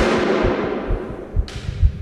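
Ambient music-like soundscape: deep, heartbeat-like thumps about twice a second under a steady low drone, with a loud noisy crash fading away over the first second and a half.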